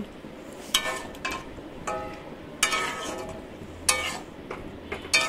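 A spatula (khunti) stirring greens in a kadai, clinking against the pan about six times. Each strike rings briefly, with quieter scraping between them.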